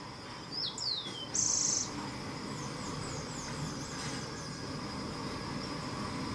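High-pitched calls of small birds: two down-slurred whistles about half a second in, a short harsh buzzy note just after, then a quick run of thin down-slurred chips. A faint steady high tone runs underneath.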